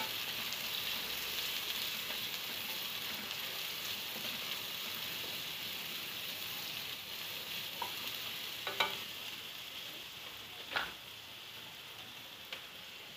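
Chopped onions and garlic sizzling in hot olive oil in a nonstick kadai while a spatula stirs them. A couple of sharp clicks come about two-thirds of the way through, and the sizzle grows gradually quieter toward the end.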